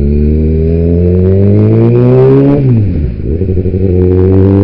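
2009 Kawasaki ZX-6R's 599 cc inline-four engine accelerating hard with the revs climbing. The pitch drops sharply about two and a half seconds in at an upshift, then climbs again in the next gear.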